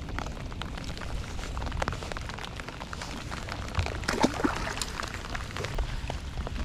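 Scattered raindrops tapping, with a steady low rumble of wind on the microphone, as a thunderstorm moves in over open water.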